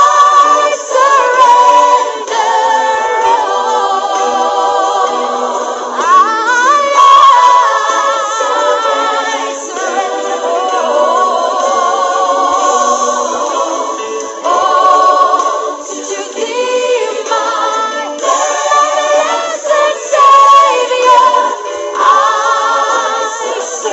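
Choir singing, with a wavering vibrato on the held notes.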